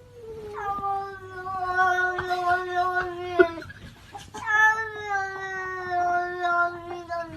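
A domestic cat gives two long, drawn-out yowls with a short pause between them, each holding its pitch and sagging slightly towards the end.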